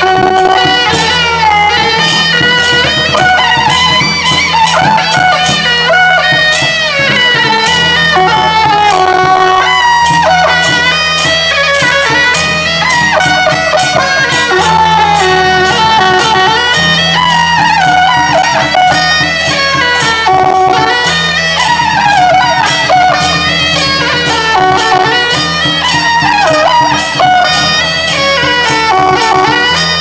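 Traditional Taiwanese procession music: shrill double-reed horns (suona) play a winding melody over steadily struck percussion, accompanying the dance of the giant deity-general puppets.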